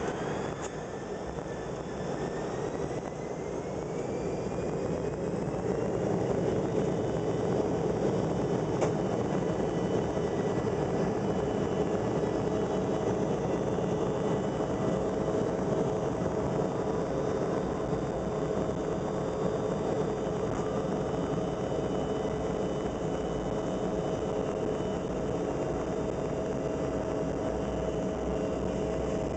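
Airliner's jet engines heard from inside the cabin, spooling up with a rising whine over the first five or six seconds, then running steadily at takeoff power with a dense, constant rumble as the plane accelerates down the runway.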